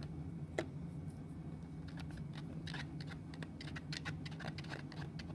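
Irregular light clicks and taps of plastic being handled as glue is worked with a plastic straw on a plastic container lid and the eye-drop bottle is squeezed, over a steady low hum.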